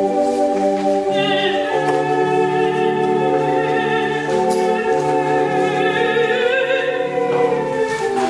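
Organ music with sustained chords and a stepping bass line; from about a second in, a solo voice sings a long phrase with vibrato over it, stopping shortly before the end.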